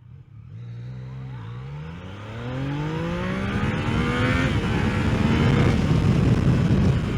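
Yamaha XSR900's inline-three engine accelerating hard: the revs dip at a gear change about a second and a half in, then climb for about three seconds and level off. Wind noise grows louder as speed builds.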